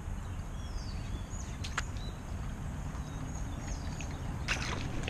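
Quiet riverside ambience over a low steady rumble, with faint high bird chirps and a couple of small clicks; a short noisy rush comes near the end.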